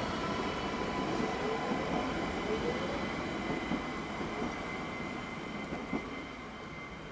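ÖBB Cityjet (Siemens Desiro ML) electric multiple unit running past, with a steady electric whine, short rising whines from the drive and rolling wheel noise. There are two sharp clicks from the wheels over the track, and the sound fades a little toward the end as the train draws away.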